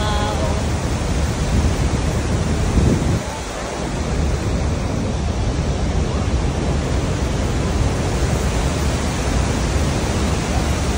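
Steady, loud roar of Niagara's Horseshoe Falls heard close up from its base: an even rush of falling water and spray.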